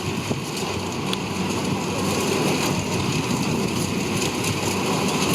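Kubota DC-70 rice combine harvester running steadily, its diesel engine and machinery making a dense, even drone.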